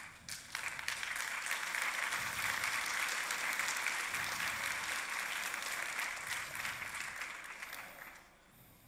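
Audience applauding: the clapping starts at once, holds steady for about seven seconds and dies away near the end.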